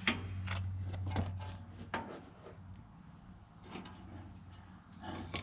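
Scattered light metallic clicks and knocks as a suspension bolt and screwdriver are worked against the mounting holes of a car's rear suspension, over a steady low hum. The bolt does not slide through because the holes are not lined up.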